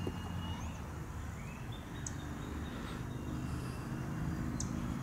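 Outdoor ambience: a steady low rumble with faint, thin bird chirps and whistles over it, including two brief high chirps about two and four and a half seconds in.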